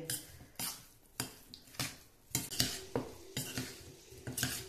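Steel spoon stirring in a stainless steel bowl, clinking and scraping against the bowl about twice a second as soya chunks are worked through a thick curd-and-spice batter.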